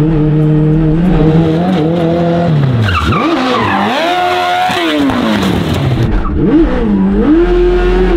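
Hayabusa motorcycle inline-four engine in a Japanese mini truck, revving high and dropping repeatedly as the truck drifts, with tires squealing in the slides.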